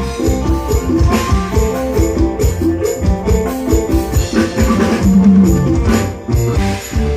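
Music with drums and percussion playing a steady beat under held instrument notes.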